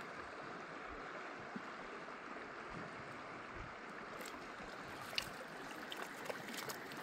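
River water running steadily. A sharp click comes about five seconds in, followed by a few lighter clicks.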